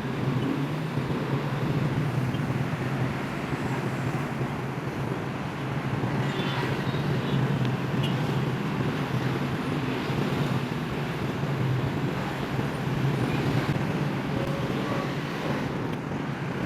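Steady city road-traffic noise: a low, even rumble of motor vehicles, with a few faint ticks partway through.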